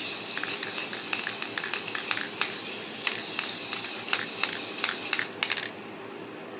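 Aerosol can of matte clear coat spraying in a steady hiss, with small ticks running through it; the spray stops about five seconds in.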